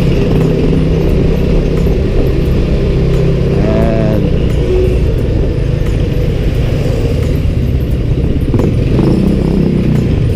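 Motor scooter engine running steadily while riding at low speed, a continuous low hum.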